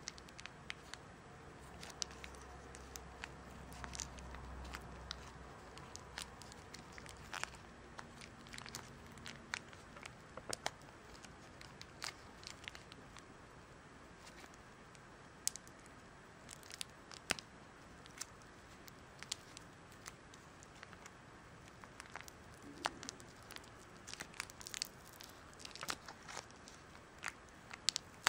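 A thin clear plastic wrapper being crinkled and pulled open in the fingers, giving irregular sharp crackles and clicks.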